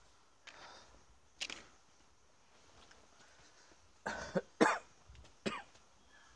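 A person coughing: one cough about a second and a half in, then a run of three or four coughs from about four seconds in.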